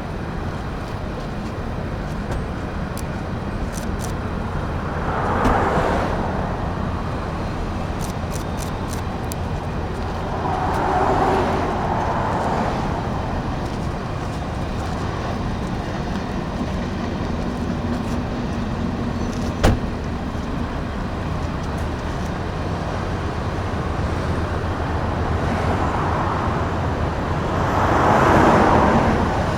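Steady road and tyre noise of a car travelling on a highway, swelling louder three times as if vehicles are passing, with a single sharp click about two-thirds of the way through.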